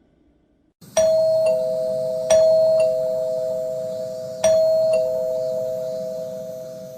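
Two-tone doorbell chime, a ding-dong rung three times: each time a higher note is followed half a second later by a lower one, and the notes ring on and slowly fade.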